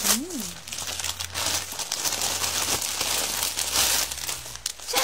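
Plastic packaging crinkling and rustling: a grey plastic courier mailer being handled and opened, then a clear plastic bag around a garment pulled out, with a steady run of uneven crackles.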